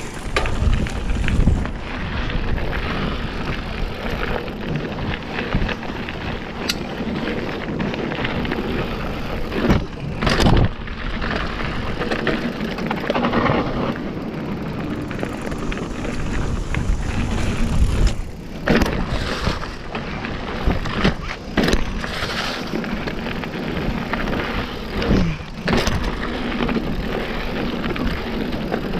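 Mountain bike riding down a rocky dirt trail: a steady rush of tyre and riding noise, broken several times by sharp knocks and rattles as the bike hits rocks.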